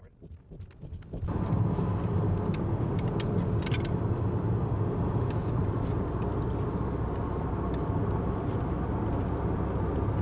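Steady rumble of a car on the move, heard from inside the cabin, fading in over the first second, with a few faint clicks or rattles early on.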